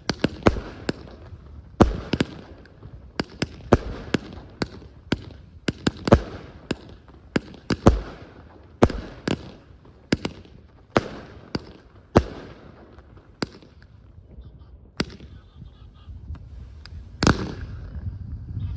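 Category F2 consumer fireworks going off: a rapid, irregular string of sharp bangs, each with an echoing tail. They thin out after about 13 seconds to a few single bangs, with one strong bang near the end.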